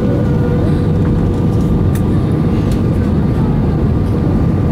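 Steady cabin noise inside an Airbus A320 in flight: a dense, low rush of airflow and engines with a faint steady hum above it.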